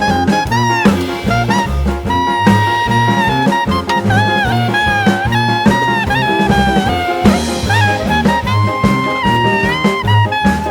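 Background music: upbeat swing jazz with brass and saxophone over a steady walking bass beat.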